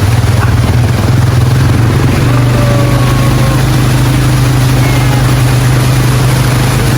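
ATV engine running steadily at a constant speed, a loud, even low drone.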